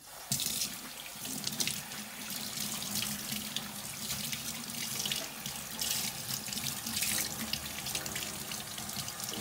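Kitchen tap running into a stainless-steel sink, the stream splashing over a gutted fish held in the hands as its belly cavity is rinsed out. The water starts suddenly just after the beginning and then runs steadily.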